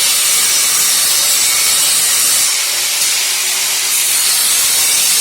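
Angle grinder with a 0.8 mm cutting disc cutting into sheet steel: a steady, loud high hiss with the motor's whine beneath, easing briefly about two and a half seconds in. The slots are cut only part-way through, to score the metal for bending.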